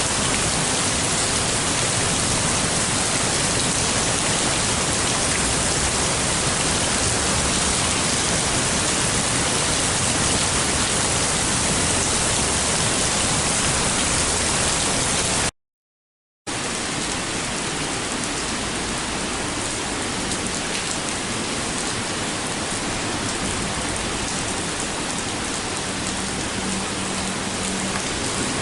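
Heavy summer rain falling steadily, a dense even hiss. About halfway through it cuts out for a second of silence, then a second recording of heavy rain follows, a little quieter.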